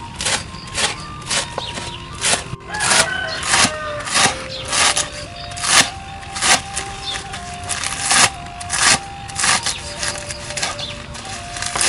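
Knife chopping a bundle of green leaves on a wooden board, sharp chops about twice a second, over background music with a simple melody.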